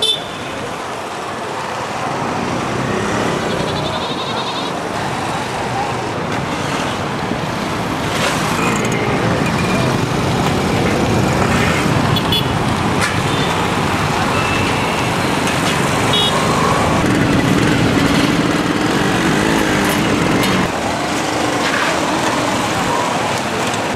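Busy street traffic, mostly small motorcycles with a few cars passing: a steady, continuous rumble of engines and road noise.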